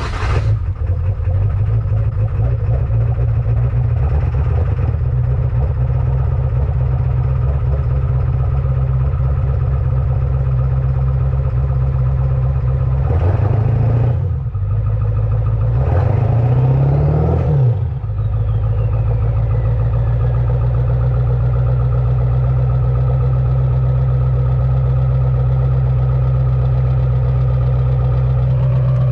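Straight-piped 2002 7.3 Power Stroke V8 turbo diesel through an 8-inch stack, cold-starting and blowing out the snow packed in its stack, then idling. It is revved briefly twice near the middle, and after the second rev the aftermarket turbo whistles as it spools down.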